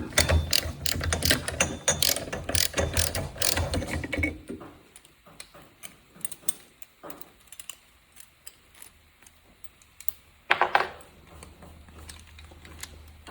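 Hand socket ratchet clicking rapidly as bolts on an ATV brake rotor are backed out; the clicking stops about four seconds in. After that only scattered light clicks, with a brief louder rattle about ten seconds in.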